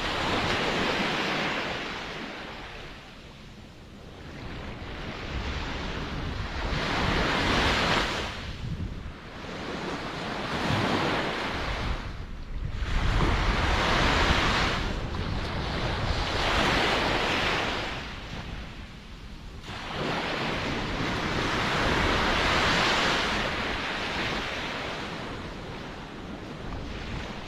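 Ocean surf: waves breaking and washing in one after another, the rush of water swelling and falling away every few seconds.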